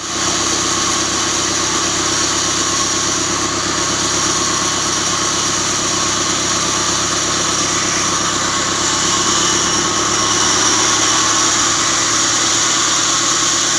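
Band saw wood-splitting machine running steadily, a continuous loud mechanical noise, slightly louder from about ten seconds in.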